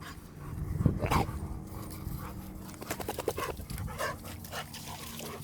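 Cane Corso dogs panting and scuffling as they play and squabble, with one louder, brief dog sound about a second in.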